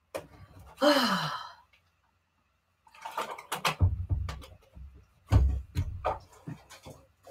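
A person's long, breathy sigh falling in pitch about a second in. It is followed by a few seconds of hand-handling noise on a tabletop: clicks and scrapes, with two low thuds.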